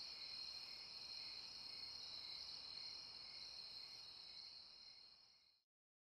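Faint, steady trilling of crickets, fading out to silence near the end.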